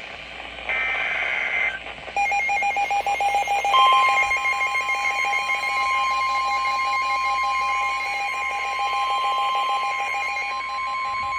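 Emergency Alert System alert tones: a short burst of high electronic tones, then a fast stuttering pattern of several tones, joined about four seconds in by a steady single alert tone that holds on. The tones signal the start of a flash flood warning broadcast.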